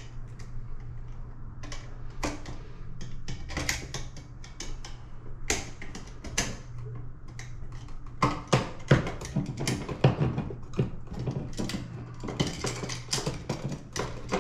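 Irregular small clicks, taps and knocks of hand work on a rocker light switch, its screw terminals and wires with a screwdriver, getting busier about halfway through, over a low steady hum.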